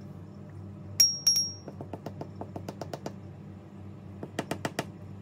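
Small metal differential gears and a plastic RC diff case being handled: two sharp, ringing clinks of metal against a ceramic mug about a second in, then a run of light, quick clicks, and four clicks close together near the end.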